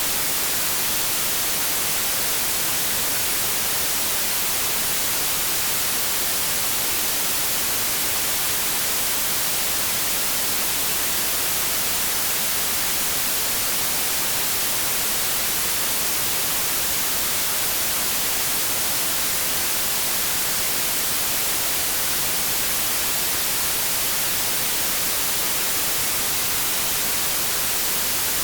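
Generated white noise: a steady, even hiss, brightest in the high frequencies.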